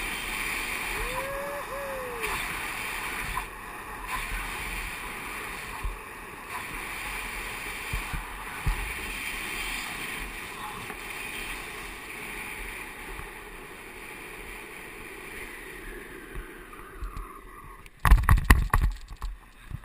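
Downhill longboard wheels rolling fast on asphalt, with wind rushing over the microphone: a steady rushing, rumbling hiss. Near the end, a burst of loud knocks and thumps takes over.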